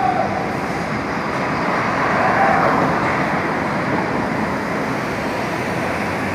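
Steady city street traffic noise, with a brief pitched tone about two and a half seconds in.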